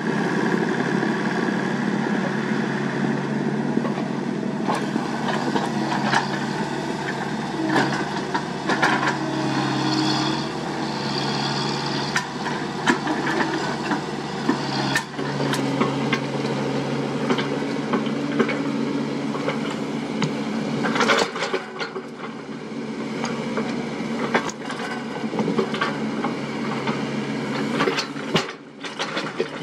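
Komatsu PC75UU mini excavator's diesel engine running steadily under load, with frequent clanks and scrapes as the bucket works soil and stones.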